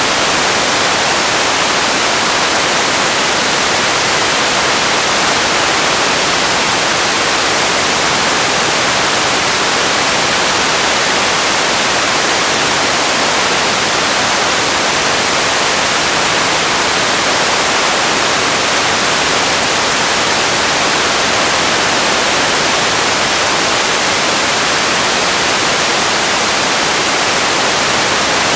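Steady, unchanging hiss of static-like noise, bright and even with little bass, filler ambience noise for video editing.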